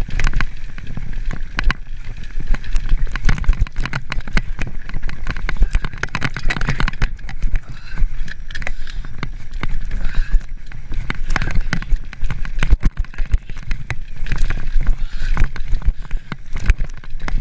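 Mountain bike riding fast down rocky dirt singletrack: tyres crunching and the bike rattling, with many sharp knocks from rocks and bumps over a low rumble.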